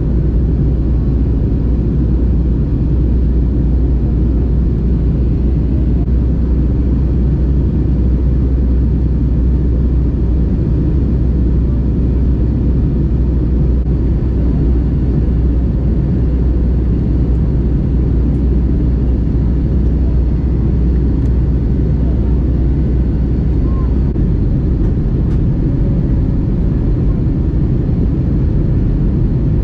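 Steady low rumble of jet engines and airflow inside the cabin of an Airbus A320-family airliner descending to land. The deepest part of the rumble lightens slightly near the end.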